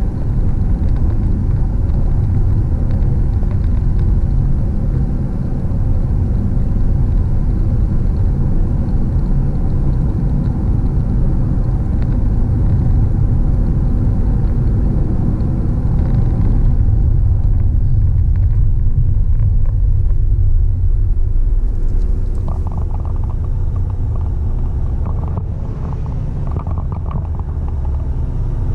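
Road and engine noise inside a car cruising on a highway: a steady low rumble that eases a little in the last third.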